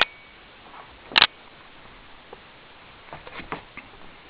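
A sharp click, then a louder short scuff a little over a second in, followed by a few faint ticks and taps over quiet room tone.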